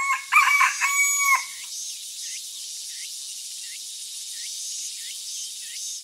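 A rooster crows for about a second and a half, then a steady high hiss with a small bird's short chirp repeating about every two-thirds of a second, like a morning farmyard ambience.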